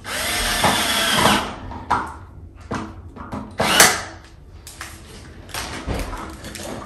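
Handheld power drill driving screws into a plastic children's ride-on toy during assembly: one run of about a second and a half at the start, then several short bursts, the loudest about four seconds in.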